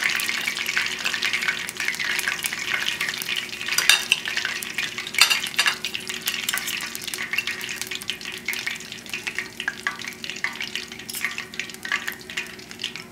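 Battered chicken pieces frying in a pot of hot oil: a steady crackling sizzle with a few louder pops about four and five seconds in, easing off slightly near the end.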